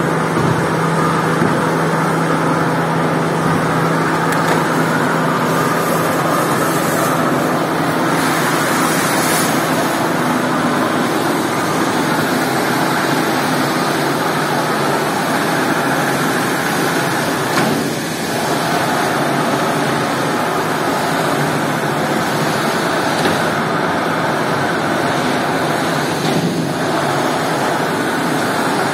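Electric carpet-scrubbing machine running steadily, its motors and brushes working over a soaked, foamy rug, with a brief dip in the noise about two-thirds of the way through.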